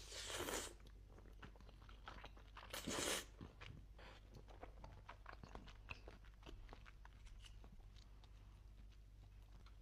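A person eating close to the microphone: chewing with many small wet mouth clicks, and two louder noisy bursts of slurping or biting at the start and about three seconds in.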